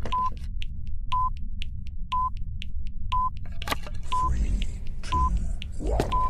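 Electronic buzzer beeping: short, high, single-pitch beeps about once a second, with faint clicks between them and a low rumble underneath.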